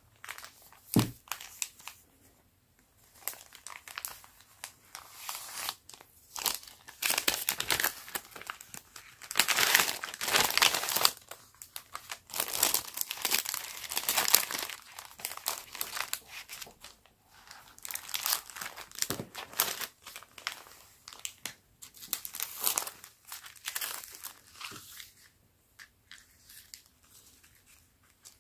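Clear plastic stickers and their plastic bag crinkling as they are handled and sorted by hand, in irregular bursts of rustling, with a soft thump about a second in.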